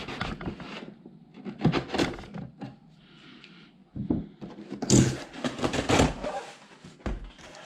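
Packaging being handled and opened by hand: irregular rustling, scraping and knocks, with the loudest handling noises about five and six seconds in.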